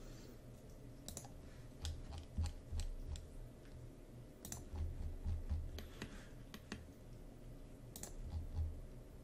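Scattered computer mouse clicks and keyboard taps, with a few dull low thumps, over a faint steady hum.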